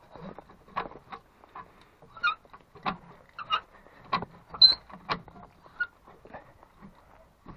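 Homemade chain wrench being worked around a nut: its metal chain links and handle clinking and clicking in short, irregular strokes, with a few brief high metallic squeaks.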